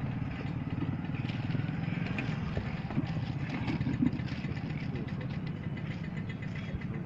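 A small engine running steadily at idle, with a low, evenly pulsing rumble. Two sharp metal clinks from steel serving vessels come about three and four seconds in.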